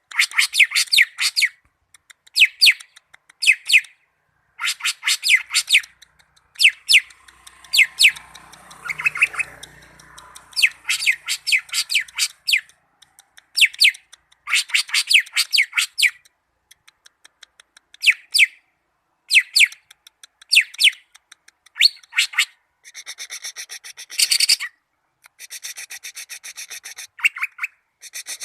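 Cucak ijo (green leafbird) singing: loud bursts of rapid, trilled notes every second or two, with harsher, buzzy rasping phrases near the end.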